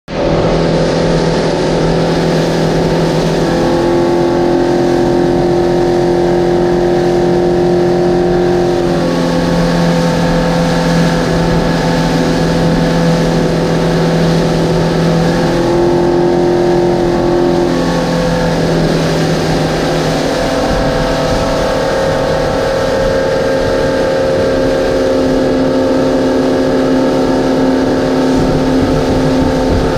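Twin 200 hp outboard motors running hard as the boat planes at speed, a steady drone whose tones shift in pitch a few times, over the rushing of water and wind.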